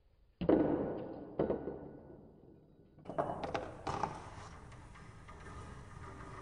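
Knocks and clatter from the wooden and cardboard parts of a homemade Rube Goldberg machine: a sharp hit about half a second in that rings down slowly, a second knock a second later, then a quick run of knocks around three to four seconds in.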